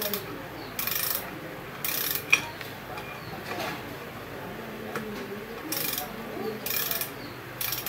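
Ratchet wrench clicking in short spells on a nut at an old motorbike's rear wheel hub, about six quick bursts with pauses between.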